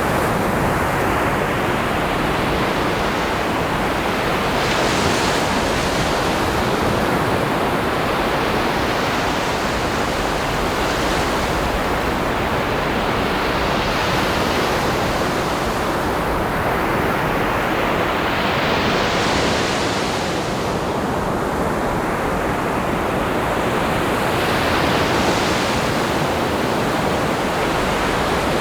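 Ocean surf: a continuous rushing of water, its hiss swelling every six seconds or so as waves break and wash in.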